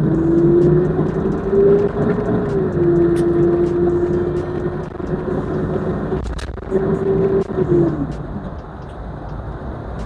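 1996 Toyota Hilux Surf's turbo-diesel engine running on the move with a steady engine tone. The tone climbs slowly, drops about two and a half seconds in, and rises and falls away again near eight seconds, growing quieter toward the end.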